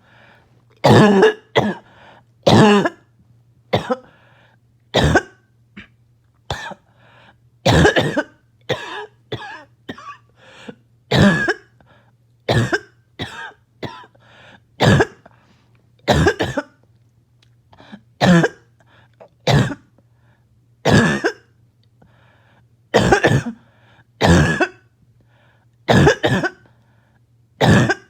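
A person's harsh, barking cough that sounds choking, in a long unbroken fit of about one cough a second, some in quick doubles. The fit was set off by an itchy nose and throat.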